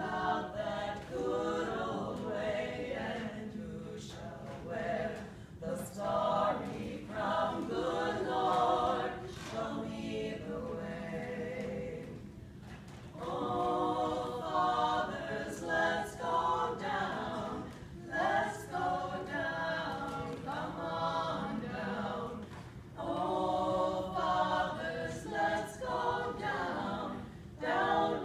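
Small mixed church choir singing an anthem in phrases, with a short break about halfway through.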